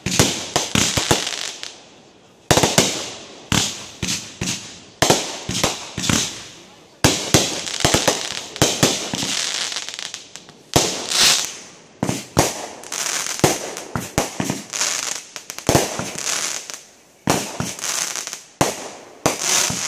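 Aerial fireworks going off: sharp bangs in quick clusters, with crackling and hissing between them and a few brief lulls.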